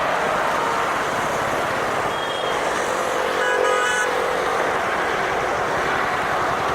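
A train running past with a steady rumble and hiss of wheels on rails, and a short toot of the locomotive horn about three and a half seconds in.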